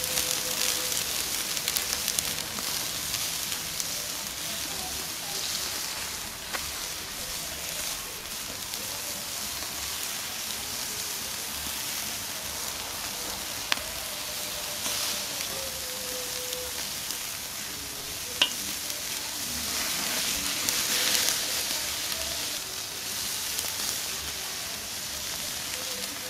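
Salted chuck steak sizzling on a grill over mesquite lump charcoal: a steady crackling hiss, with two sharp ticks in the middle.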